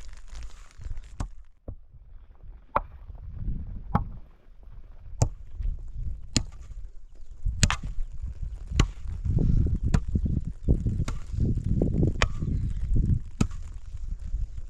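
Chopping: a hand tool striking at an even pace, about one stroke every second and a bit, a dozen or so strokes, over a low rumbling background that grows louder in the second half.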